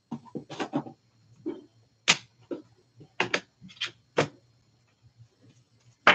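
Irregular sharp clicks and light taps, about a dozen, from trading cards being handled and set down on a table, with sharper ones about two seconds in and near the end.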